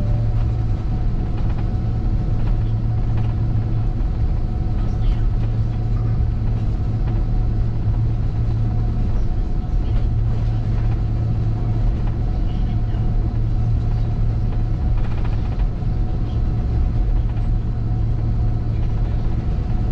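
Airbus A330 airliner heard from inside the cabin: a continuous drone of jet engines and airflow, with a steady low hum and a fainter higher tone above it.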